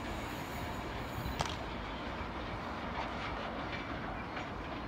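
Freight train of white bulk tank wagons rolling away along the rails: a steady rumble of wheels on track, with one sharp metallic click about a second and a half in and fainter wheel clicks later.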